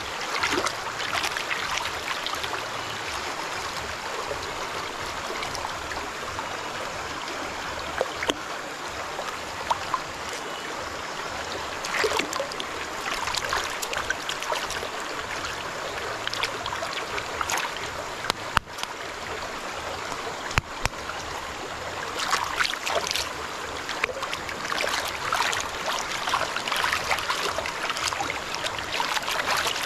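Stream water running and sloshing in a gold pan as hands wash and scrub rocks and gravel under the surface, with scattered sharp clicks of stones knocking together. The splashing is busier around the middle and again near the end.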